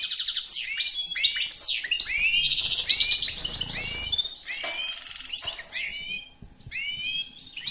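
Caged finch singing: a fast, twittering song of rapid trills and repeated downward-hooked chirps, with a short pause a little after six seconds in.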